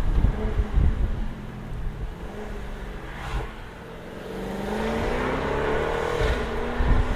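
Jaguar F-Type R's supercharged 5.0-litre V8 under way. Its engine note rises in pitch from about halfway through, breaks briefly near six seconds and then climbs again.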